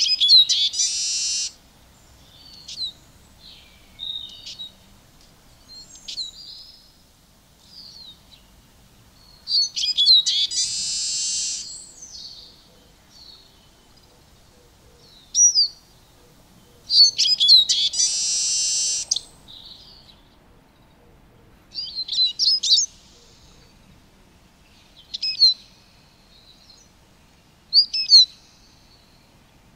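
Eurasian siskin singing: quick twittering phrases, three of which end in a long, drawn-out wheezing buzz (near the start, about ten seconds in and about seventeen seconds in), followed by shorter twitters.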